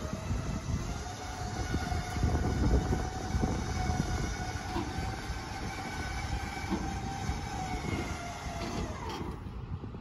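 Wind buffeting the microphone over the steady drone and whine of a tractor running, its tone fading out about nine seconds in.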